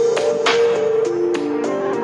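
Music: a melody of held pitched notes over a regular percussive beat.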